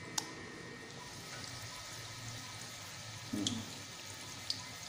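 Onion bhaji batter frying in hot oil in a kadhai: a steady faint sizzle, with a few sharp clinks of a steel spoon against the bowl and pan as batter is scooped and dropped in.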